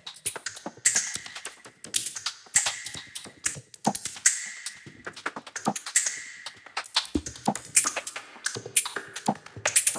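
A dense, irregular stream of sharp clicks and taps with short hissing noise bursts, and a brief high tone that comes back about once a second.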